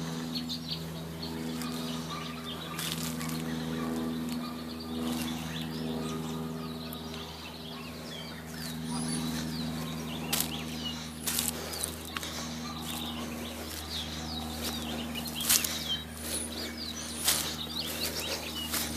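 Birds chirping over a steady low hum, with footsteps crunching through grass and dry leaves. The crackles come more often, and louder, in the second half.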